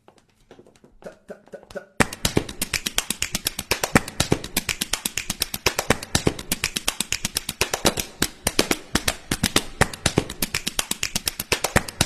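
A rapid run of sharp clicks or taps, many a second, faint at first and then suddenly much louder and denser from about two seconds in.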